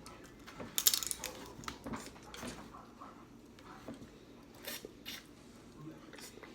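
Cooked crab shell being cracked and pulled apart by hand: a cluster of sharp cracks about a second in, then scattered smaller cracks and wet squishes.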